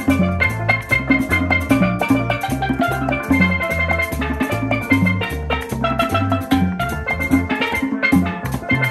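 Tropical dance music from a Christmas medley, played without singing: a repeating bass line, drums and percussion, and bright melodic notes above.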